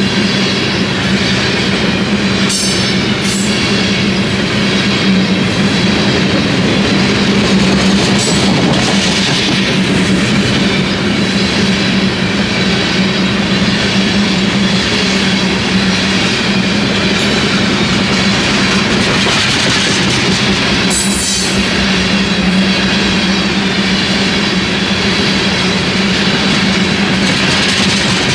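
BNSF freight train of aluminum open-top cars rolling past at speed: a loud, steady rumble and clatter of wheels on rail with a constant low hum. Brief high screeches cut through about two seconds in and again near twenty-one seconds.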